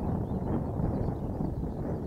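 Distant low drone of a C-130H Hercules' four turboprop engines on approach, mixed with wind buffeting the microphone. The result is a steady rumble without distinct tones.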